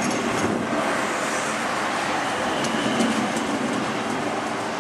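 VR Sm3 Pendolino electric train pulling into the station and rolling past close by, a steady rumble of wheels on rail with a few short clicks from the wheels a little past halfway.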